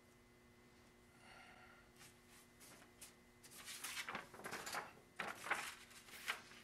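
Hands working soft plasticine clay at a wooden work table: a run of irregular scuffing and rustling handling noises in the second half, loudest near the end.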